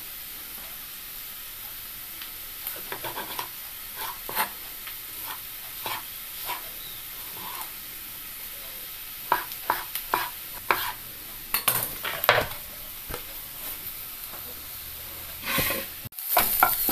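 A knife chopping a tomato on a wooden cutting board, irregular sharp taps that come thickest toward the middle, over a steady sizzle of onions sautéing in a pan. Right at the end, a spatula stirs the onions in the pan.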